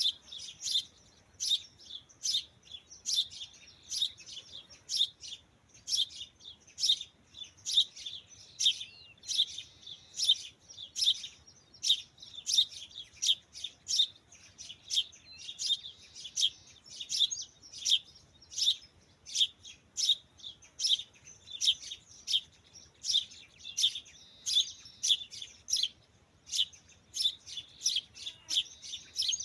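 A bird chirping over and over, about two sharp, high chirps a second.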